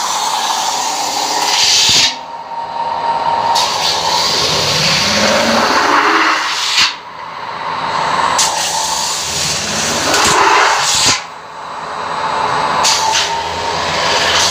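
CNC metal spinning machine forming a stainless steel blank into a cake pan: a loud hiss of the roller working the spinning disc. The hiss drops off suddenly three times, about every four and a half seconds, and each time a rising tone follows as it builds up again for the next pass.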